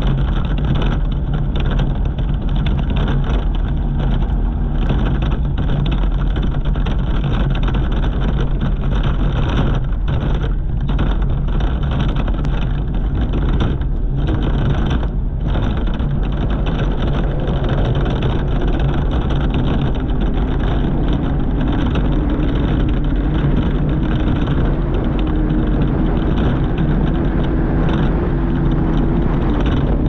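Off-road race buggy heard from on board at speed: its engine runs hard under the wind and dirt noise. Through the second half it pulls back up, with a faint rising note as the buggy speeds up again.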